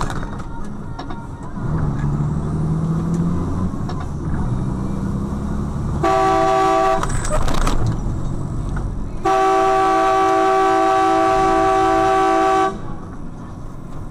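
Vehicle horn sounding twice over running engine noise: a honk of about a second, then a long steady blast of about three and a half seconds.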